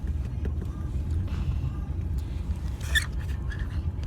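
Steady low rumble of a vehicle engine running, with a short sharp noise about three seconds in.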